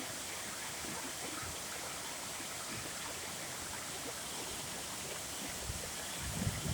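Heavy rain of a rainstorm falling steadily, an even hiss. Near the end a low rumble starts to swell.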